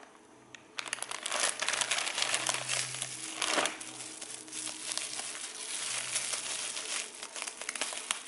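Clear plastic bubble bag crinkling and rustling as it is handled and unwrapped, starting about a second in, with many small crackles.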